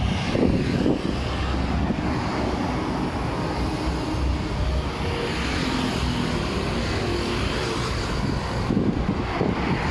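Street traffic: a motor vehicle engine running close by over a steady background of street noise.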